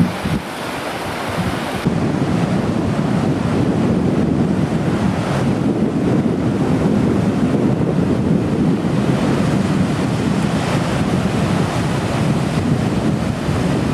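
Heavy storm surf at a tidal surge, waves surging and breaking against a stone seawall and steps, loud and continuous, with wind buffeting the microphone. The sound steps up in level about two seconds in.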